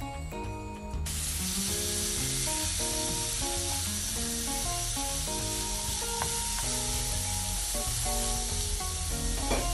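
Ground beef, onions and peppers sizzling in a nonstick frying pan as they are stirred with a silicone spatula. The sizzling comes in about a second in, under background music with a tune of held notes.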